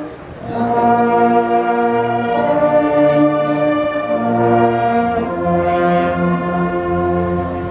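Bersaglieri fanfare, an all-brass Italian military band, playing sustained chords that change every second or two. A short break comes about half a second in before the next phrase starts.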